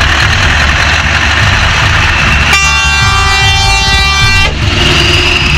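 Scania R560's straight-piped V8 engine running loud as the truck drives past, with a multi-tone air horn sounding once for about two seconds in the middle.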